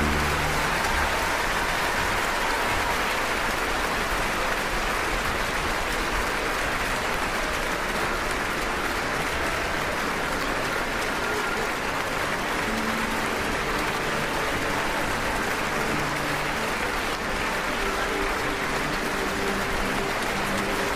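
Theatre audience applauding with dense, steady clapping. The orchestra's final chord dies away about a second in.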